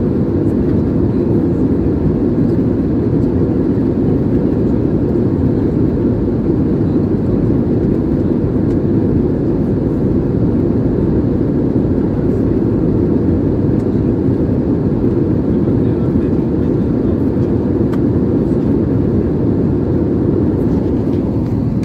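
Steady low rush of jet airliner cabin noise in cruise flight: engine and airflow noise heard from inside the passenger cabin.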